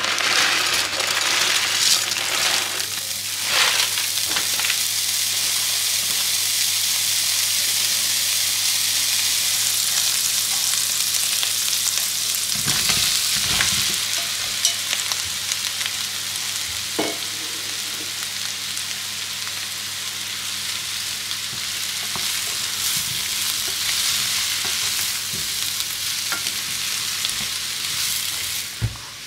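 Fat sizzling hot in a nonstick frying pan: a loud, steady, high hiss. About halfway through there are a few low knocks as sliced button mushrooms go into the pan, and the frying carries on while they are stirred with a wooden spatula.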